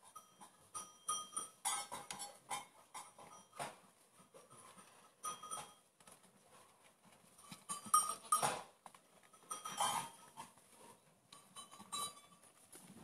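Goats bleating while a doe licks her newborn, still-wet kids clean, with straw rustling under them; the loudest rustles come about eight and ten seconds in.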